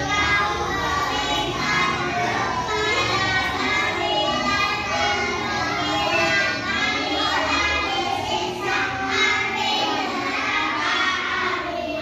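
Young children singing a song together over music.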